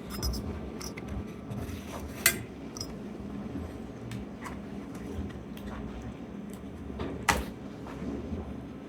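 Light clicks and clatter of small plastic and metal laptop parts being handled as the old hard drive is taken out of an opened HP ProBook, with two sharper knocks about two seconds in and about seven seconds in.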